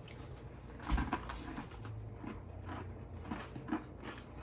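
Someone chewing Oreo cookies, a series of irregular soft crunches and mouth clicks, with a soft thump about a second in.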